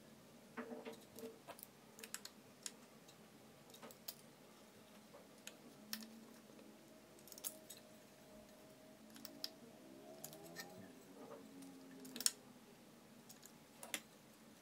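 Scattered light clicks and taps of hard 3D-printed plastic parts and a small screwdriver being handled, with faint squeaky rubbing of plastic in the middle and one sharper click near the end.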